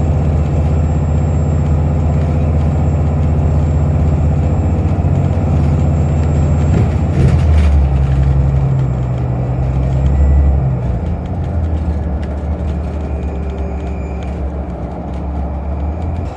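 City bus engine and drivetrain running as heard from inside the moving bus: a steady low drone, with a brief knock about seven seconds in, easing off and getting quieter after about ten seconds.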